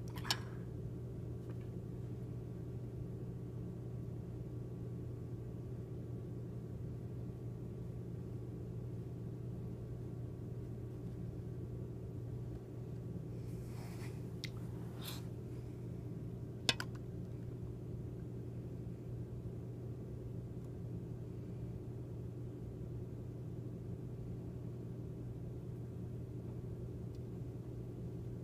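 Steady low hum, with a few brief clicks: one just after the start, a couple about halfway through and one a little later.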